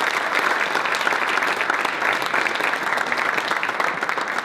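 A crowd of a few dozen people applauding steadily, a dense patter of hand claps.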